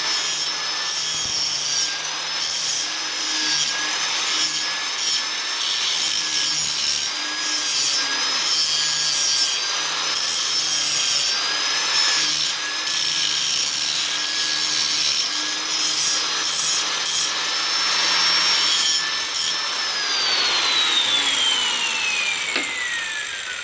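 Angle grinder with a grinding wheel smoothing a saddle cut in the end of a metal pipe: a steady high whine with grinding noise, the pitch dipping each time the wheel bears on the metal. About twenty seconds in it is switched off and the whine falls away as the wheel winds down.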